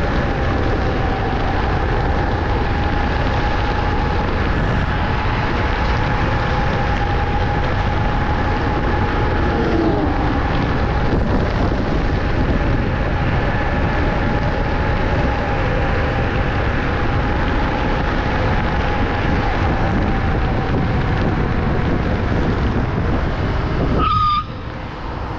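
Heavy wind rushing over the microphone of an electric scooter ridden at speed, with the steady whine of the Wolf King GT Pro's dual hub motors underneath. Near the end the wind noise drops off abruptly as the scooter slows, and a high squeal begins.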